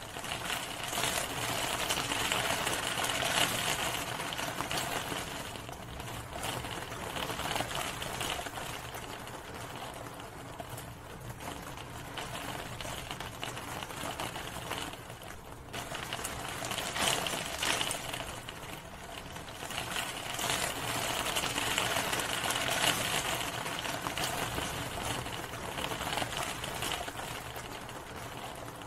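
Steady rain, a dense patter of many small drops that swells and eases every few seconds.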